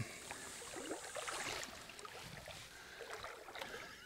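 Water washing and lapping at the shoreline, with scattered light clicks.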